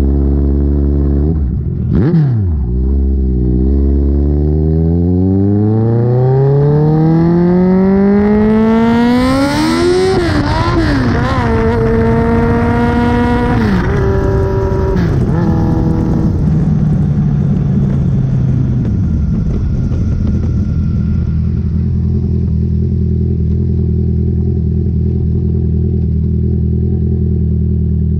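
A single vehicle engine idles, gives a quick rev, then climbs slowly and smoothly to high revs and wavers there for a few seconds. It drops back, holds briefly at a lower speed, and settles into a steady idle for the last several seconds.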